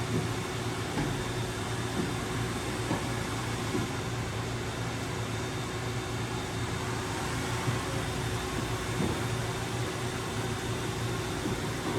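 Kitamura Bridgecenter 8 vertical machining center's spindle running steadily at about 5,000 rpm, a quiet, even mechanical hum with a few faint knocks.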